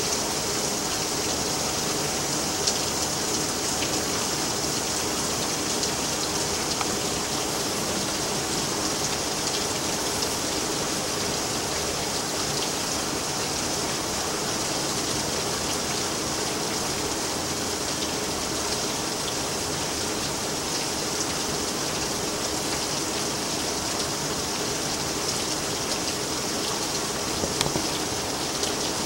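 Steady rain falling and splashing on surfaces during a severe storm, an even hiss with no let-up.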